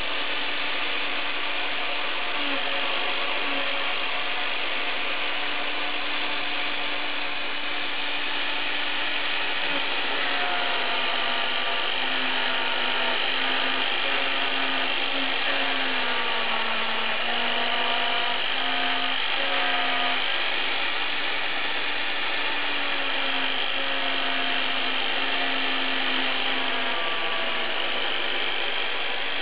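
Homemade CNC router milling clear plastic: the spindle and cutter run with a steady whir, while the machine's drive motors add tones that step up and down in pitch as the axes move.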